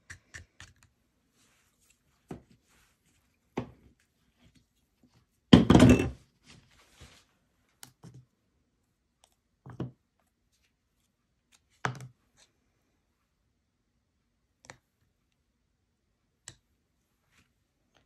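Light knocks and clicks of things being handled on a work table, spaced a second or more apart, with one louder clatter lasting about half a second around six seconds in.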